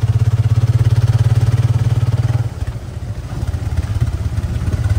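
Small motorcycle engine running while riding, a fast, even low throb. About halfway through it eases off and turns quieter and rougher.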